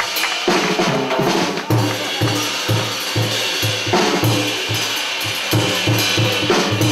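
Live jazz drum kit and upright bass playing together: cymbals and drum strokes over a run of low plucked bass notes.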